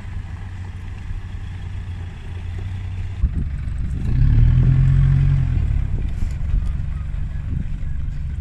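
Pickup truck engines running as 4x4 off-road trucks drive over a dirt track. About three seconds in the sound changes abruptly to a nearer truck engine, which gets louder for a couple of seconds and then eases off.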